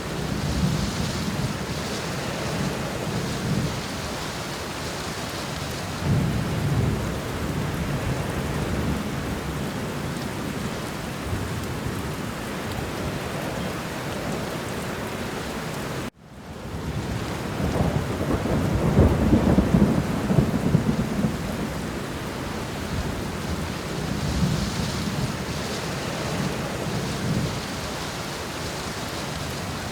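Steady rain with several rolling thunder rumbles swelling and fading, the loudest a little past the middle. Just after halfway the sound cuts out for an instant and fades back in.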